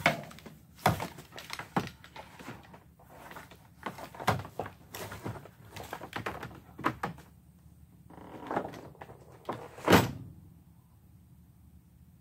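Irregular knocks, clunks and clatter of power tools and their cords being handled and set down against a plastic canoe hull, with the loudest thump about ten seconds in, then quiet.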